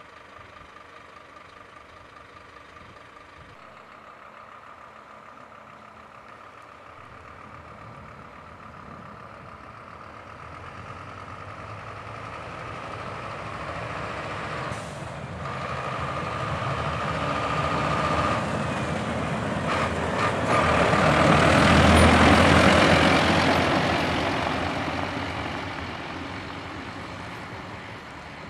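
A Scania P270 diesel plough truck approaches with its front snow plough down, scraping and throwing snow, and passes close by. The engine and plough noise build steadily to a loud peak about three-quarters of the way through, then fade as it moves away. A steady high whine runs through the first half, with a few short clicks around the middle.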